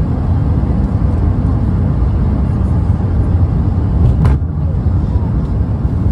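Steady low rumble of engines and rushing air inside an Airbus A380 cabin during the landing approach, with the wing flaps extended.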